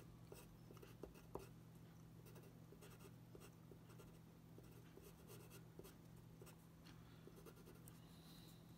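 Faint scratching of a No. 2 graphite pencil sketching on paper in short, irregular strokes, over a low steady hum.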